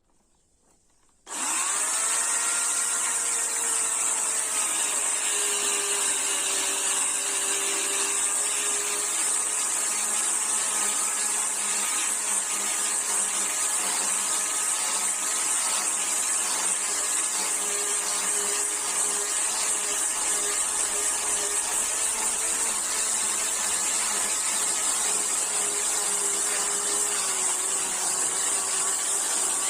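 Chainsaw starting abruptly about a second in, then running steadily with a constant motor whine.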